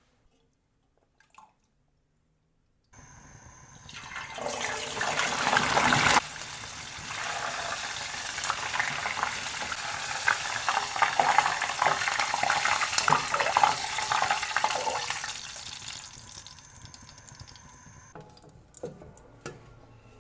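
Food deep-frying in hot oil: loud sizzling that swells, drops sharply about six seconds in, then keeps crackling densely and slowly dies away.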